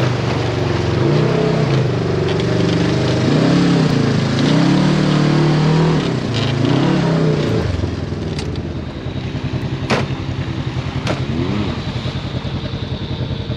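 Side-by-side UTV engine, a Polaris RZR 1000, heard from the cockpit as it drives through mud, revving up and down over and over. About eight seconds in it drops to a lower, steady running with two sharp knocks a second apart.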